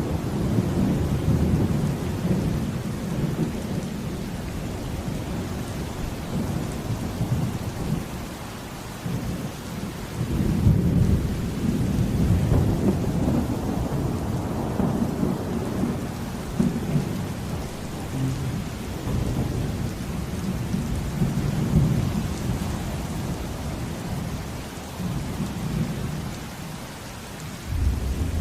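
Steady heavy rain under rolling thunder: low rumbles swell and fade several times over the steady hiss of the downpour.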